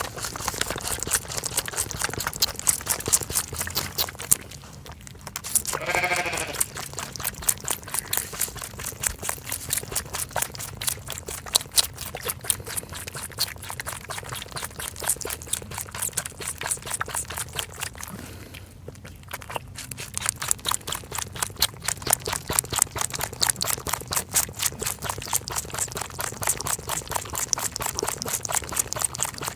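Lamb sucking milk from a feeding bottle's teat close to the microphone: a fast, steady run of wet sucking clicks, pausing briefly twice. A short wavering bleat comes about six seconds in.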